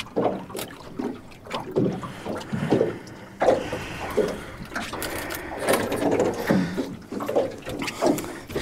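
A man breathing hard in irregular gusts, with water and handling knocks in a jon boat, after a heavy fight with a big catfish.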